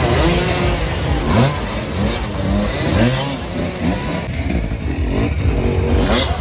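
Several dirt-bike engines revving, their pitch repeatedly rising and falling as the throttles are worked, with a few short knocks among them.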